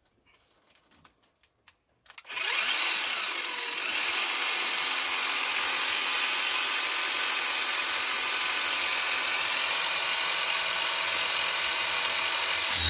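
Worx cordless power washer switched on about two seconds in, its motor and pump running steadily with a loud hiss, being test-run after the hose is connected.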